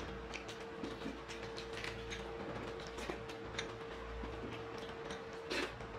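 Two people eating puri and chana curry by hand: faint, irregular clicks and smacks of chewing and of fingers picking food from plates and bowls, over a steady hum.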